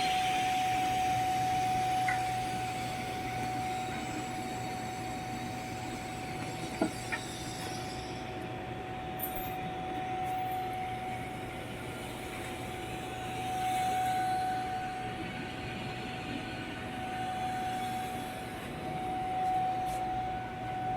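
TIG welding setup running with a steady high whine over a low hum, one short click about seven seconds in.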